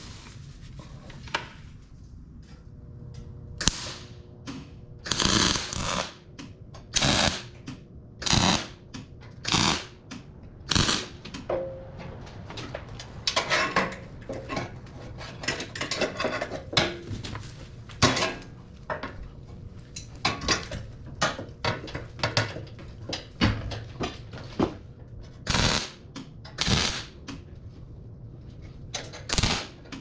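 Wire-feed (MIG) welder laying a run of short tack welds on a steel plate: a series of brief crackling bursts of arc, irregularly spaced about a second apart.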